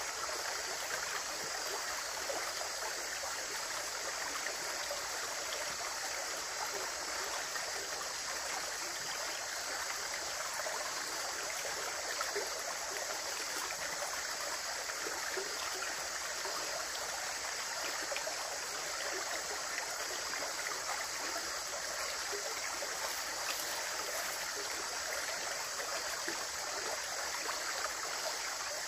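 Running water, flowing steadily with a continuous rushing babble.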